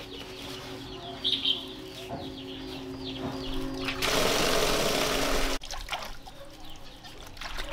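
Small birds chirping, then tap water running hard into a plastic basin, which cuts off suddenly a little past halfway. Splashes of hands washing in the basin water follow.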